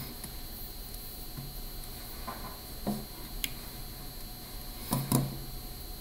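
Quiet room tone with a faint steady high whine and a few soft clicks and knocks. The loudest two clicks come close together about five seconds in.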